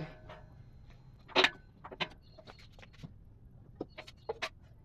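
Scattered short clicks and knocks of hands-on work on an engine being hoisted out, the loudest about a second and a half in and a quick run of clicks near the end.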